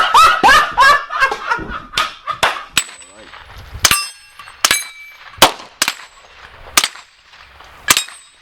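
Gunshots fired singly at an irregular pace, about a dozen in all, some followed by a metallic ringing. A voice is heard in the first second.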